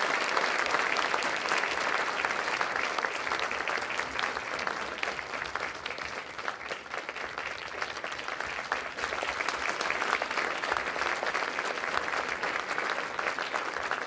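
An audience applauding: a dense patter of many hands clapping at the close of a dance piece, easing a little about halfway through and picking up again.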